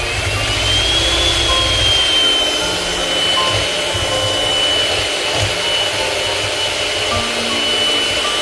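Electric hand mixer beating cold whipping cream in a glass bowl. The motor gives a steady high whine that rises in pitch over about the first second, then holds level.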